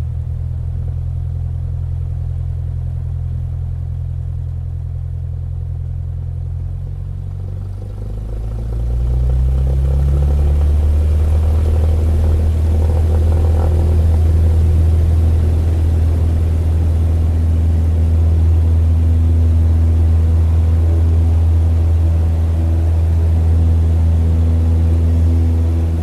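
Propeller plane engine running steadily at low power, then throttled up about eight seconds in with a rising pitch and held louder and steady for the take-off run.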